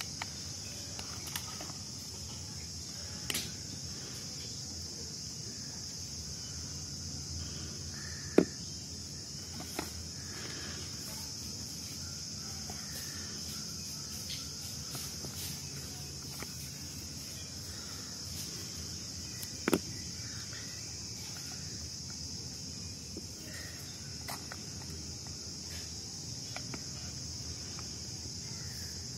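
Crickets chirring steadily in a high-pitched drone, with a few sharp clicks and taps from handling the paper pieces and glue stick. The loudest click comes about eight seconds in, and another just before twenty seconds.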